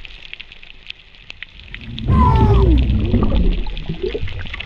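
Underwater crackle and faint clicks, then about two seconds in, loud moaning calls like whale song that glide up and down in pitch.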